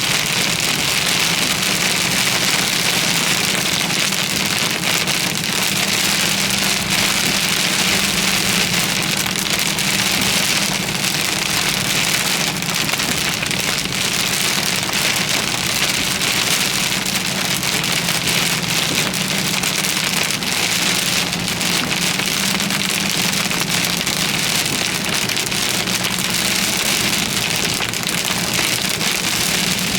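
Heavy rain beating steadily on a vehicle during a severe thunderstorm, a dense hiss of countless small drop impacts over a steady low hum.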